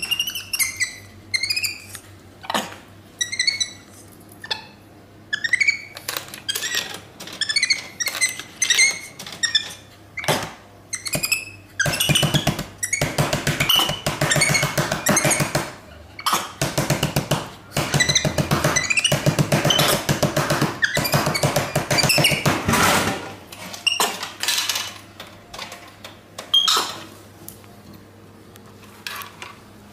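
Capuchin monkey giving short, high, squeaky chirps again and again. The calls are mixed with clicks and knocks as it handles a vending machine. For about ten seconds in the middle comes a dense, rapid rattling chatter.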